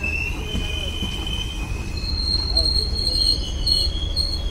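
Passenger train coaches rolling slowly into a station under braking: a high-pitched squeal from the wheels and brakes, stepping up to a higher pitch about two seconds in, over a low rumble.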